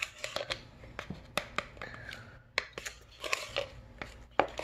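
Plastic scooper clicking and scraping inside a canister of powder as a level scoop is taken: a string of irregular sharp taps and knocks.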